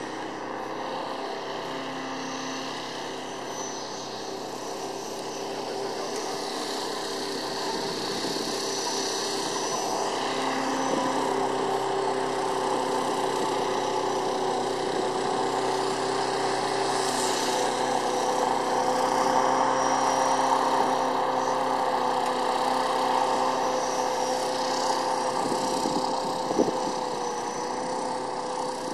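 Electric motor and propeller of a Dynam Me-109 radio-controlled model plane in flight, a steady whine that steps up and down in pitch as the throttle changes. It grows louder toward the middle as the plane passes closer, then eases off near the end.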